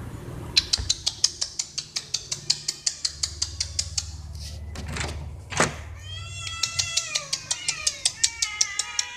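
Several stray cats meowing for food, their calls overlapping and starting about six seconds in. Throughout there is a fast, even ticking of about six clicks a second, and two brief swishes come just before the meowing begins.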